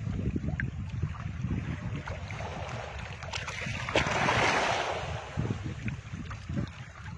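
Wind buffeting the microphone in an uneven rumble, with a few small knocks from a fishing rod handled close by; a gust of hiss swells about four seconds in.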